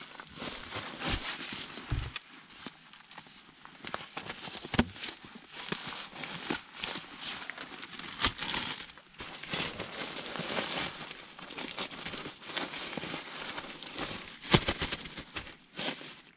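Irregular crunching and rustling with frequent sharp knocks, like movement and handling of things in snow.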